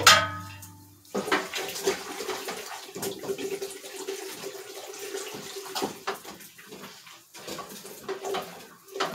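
A sharp metal clank right at the start, then water sloshing and splashing irregularly in a large pot of hot dye bath as it is worked by hand.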